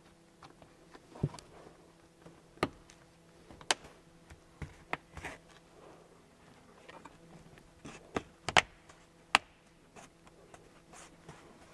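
Irregular sharp clicks and taps of hard plastic as hands handle the fabric flap and its plastic barbed edge strip along the bottom of a car seat's backrest trim panel, some strokes a second or more apart and a quick cluster a little after eight seconds in. A faint steady hum lies underneath.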